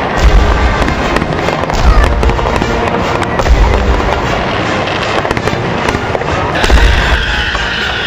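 Aerial fireworks bursting: four deep booms come a second or two apart, with crackling throughout. Music plays underneath.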